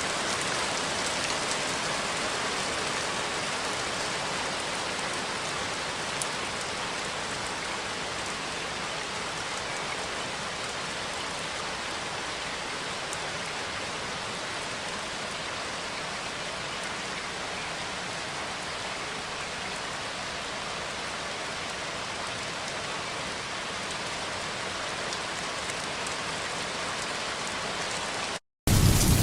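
Steady rain falling, an even hiss of many drops. Near the end it cuts out for a split second, and a louder, deeper rain sound starts up.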